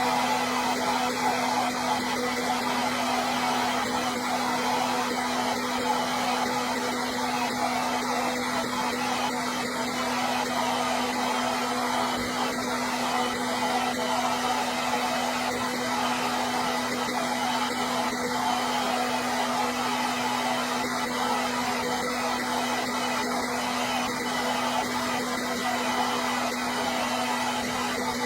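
Hair dryer running steadily: an even rush of blown air over a constant low motor hum.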